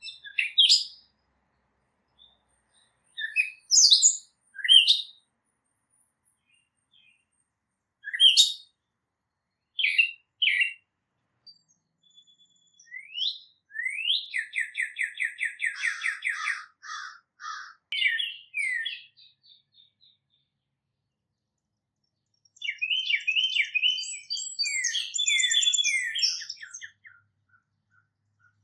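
Songbirds chirping and singing in short high calls, with a run of rapid trills about halfway through and a long stretch of busy song near the end.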